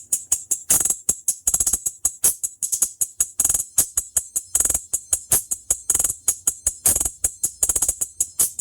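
Music played through a Soundstream TWT.5 1-inch PEI dome tweeter on its own, so only the treble comes through: a fast, thin, rhythmic run of tambourine- or hi-hat-like ticks with almost no bass.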